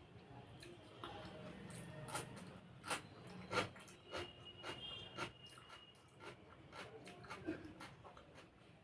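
Close-up chewing of fried egg in gravy, with irregular wet mouth smacks and clicks.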